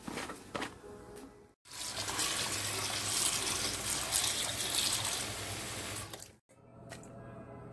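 Water running, a steady rush lasting about five seconds that starts and stops abruptly.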